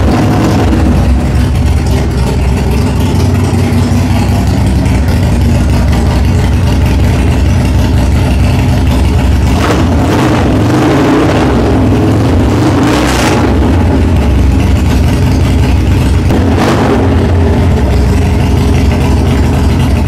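Harley-Davidson Sportster Forty-Eight's air-cooled V-twin idling through a Two Brothers Racing (TBR) aftermarket exhaust, with a few sharp throttle blips about halfway through and again near 13 and 17 seconds in.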